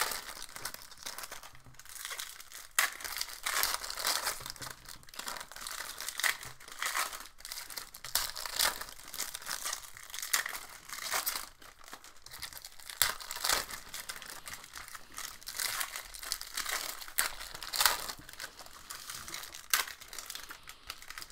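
Trading-card pack wrappers crinkling and tearing as hockey card packs are ripped open by hand: a run of irregular crackles and sharp rips.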